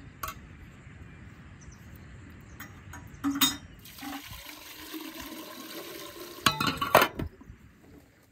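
Water poured from a glass jug into a samovar's water chamber, splashing around the metal chimney pipe. Near the end come a few loud, sharp clinks.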